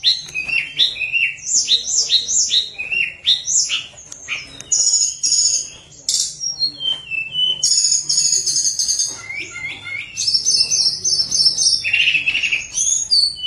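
A caged tledekan gunung singing a long, varied song of quick high whistles, sweeping notes and rapid trills, with a couple of short pauses along the way.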